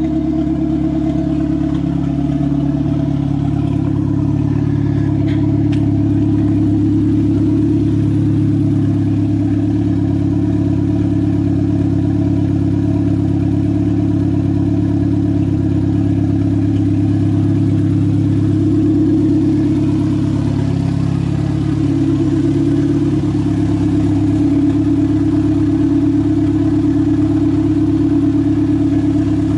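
Turbocharged Toyota 4E-FTE four-cylinder in a 1994 Tercel idling steadily, exhausting through a straight downpipe with no full exhaust or muffler.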